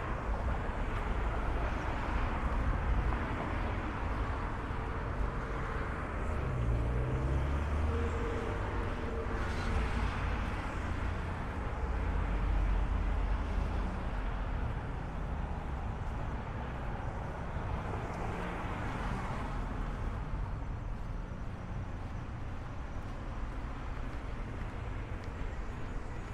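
City street traffic: a steady background of road noise, with several cars passing in turn, each rising and fading over a few seconds.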